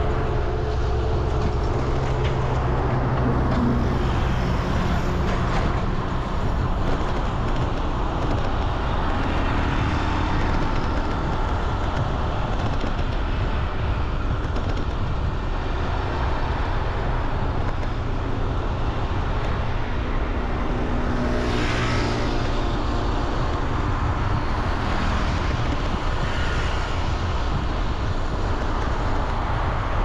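Steady road-vehicle noise: engines humming and tyres running on the road, without a break.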